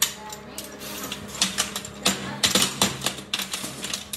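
Bare cast metal motorcycle brake shoes clacking against one another and the worktop as they are set down in a row by hand: an irregular run of light metallic clicks and knocks.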